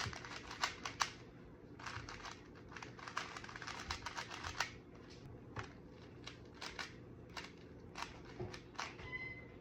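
Magnetic 3x3 speed cube being turned quickly by hand: a rapid, irregular run of light plastic clicks and clacks.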